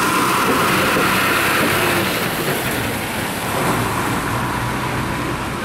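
A passenger bus's engine running and its tyres hissing on the wet road as it drives past close by, loudest in the first couple of seconds and then fading.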